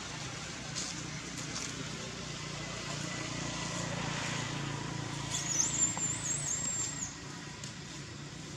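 A motor vehicle engine runs steadily, a low hum under the outdoor ambience. About five seconds in, a thin, high, wavering call sounds for just under two seconds.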